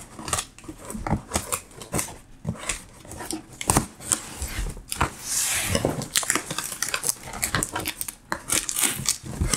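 Scissors slicing the tape on a cardboard box, then the box being opened and its contents handled: a run of clicks, knocks and scrapes, with a longer rustle about five seconds in.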